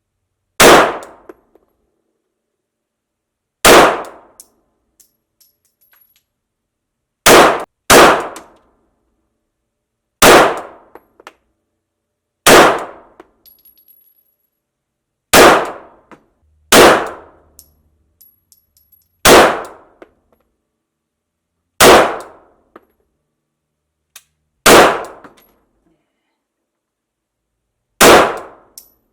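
Glock 17 MOS 9mm pistol fired slowly, twelve single shots mostly two to three seconds apart, with one quick pair about seven seconds in. Each shot is loud and sharp, with a short echo off the walls of an indoor range.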